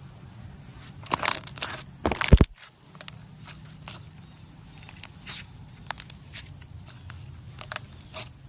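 Slime being squeezed and pressed by hand. There are two loud squishes in the first couple of seconds, then a scattered run of sharp clicking pops.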